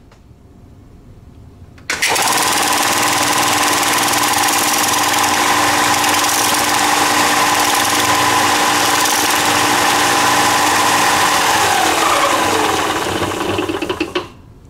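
Ryobi belt sander switched on about two seconds in and running steadily, with a drill bit held in a sharpening jig against the belt, then switched off near the end and winding down with a falling pitch.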